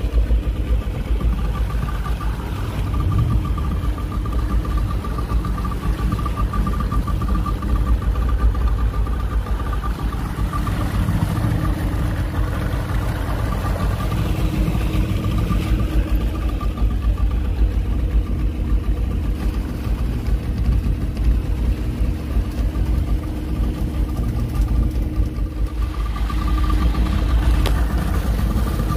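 A small fishing boat's outboard motor running steadily under way, a constant droning note, with water rushing past the hull.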